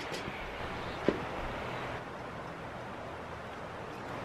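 Steady outdoor background hiss with one short, soft knock about a second in.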